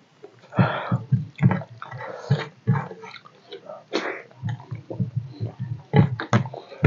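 Close, wet mouth sounds of eating fish curry and rice by hand: smacking chews, slurps and sucking at curry-covered fingers, in quick irregular bursts that start about half a second in.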